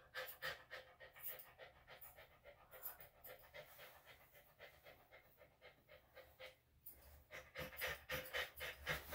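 A senior Bichon/Shih-Tzu mix dog panting softly and quickly, about three to four breaths a second, with a brief pause near the end.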